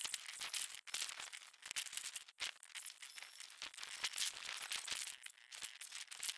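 Faint, irregular crackling and rustling, like mangrove leaves and twigs stirring and brushing close by, with many small ticks and no steady tone.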